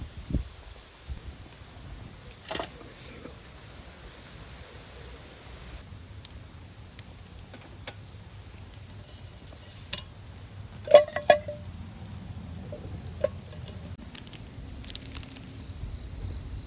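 A few light metallic clinks, the loudest a quick cluster about eleven seconds in, over low rumbling and a steady high thin tone.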